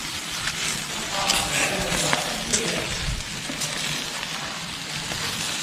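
Marinated chicken legs sizzling on a grill over a wood fire, with a few sharp clicks.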